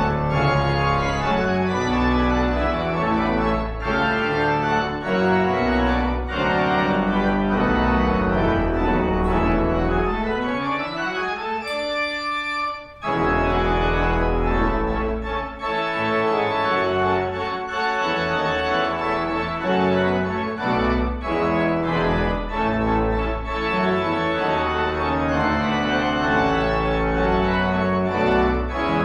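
Organ music: sustained chords with shifting notes, with a rising sweep and a brief break about twelve seconds in.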